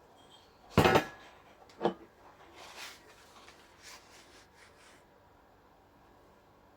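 Two sharp knocks about a second apart, the first the loudest, followed by lighter scraping and a few small clicks.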